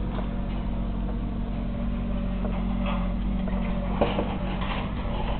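A steady low mechanical hum with a sharp click about four seconds in.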